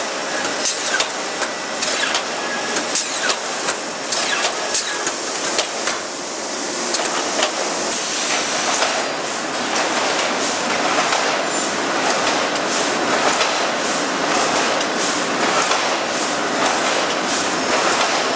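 Metallic clatter of a steel rolling mill's cooling bed and roller table as long steel bars are moved along. Sharp knocks and clanks stand out over the first several seconds, then it settles into a denser, steady rattling din.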